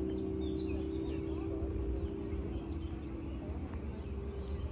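Motorboat engine running with a steady hum, with birds chirping over it.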